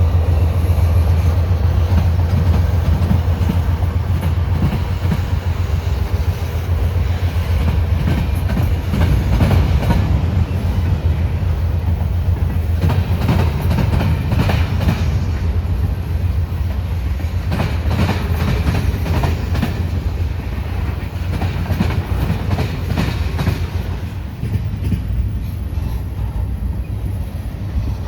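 Freight train rolling slowly past: a steady low rumble with irregular clicks and clacks from the wheels over the rail joints.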